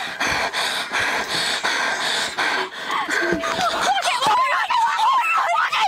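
Two young women's panicked voices: at first harsh, breathless gasping, then from about three seconds in high, wavering cries and shrieks. A steady single-pitch tone sounds underneath them.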